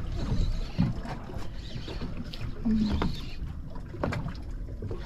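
Water moving against a kayak hull, with a low rumble of wind on the microphone and several light knocks against the boat.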